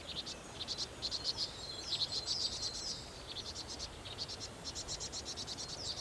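Nestlings begging in the nest, rapid high-pitched chirps in short trains, with a quieter gap about halfway through.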